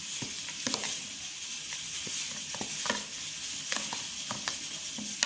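Stirring a wet paste of shredded toilet paper and dish detergent: a steady hiss with scattered light clicks.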